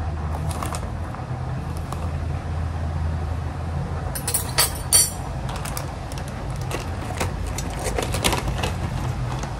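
A metal spoon clinking against a ceramic bowl and a plastic bag of oat flour rustling as flour is spooned into the bowl and mixed, with a short, sharp crinkle about halfway through that is the loudest sound. A steady low hum lies underneath.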